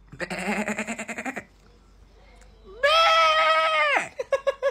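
A person imitating a goat's bleat. It starts with a low, quavering bleat of about a second and a half, then after a pause comes a higher, held bleat that drops in pitch as it ends. A few short bursts follow near the end.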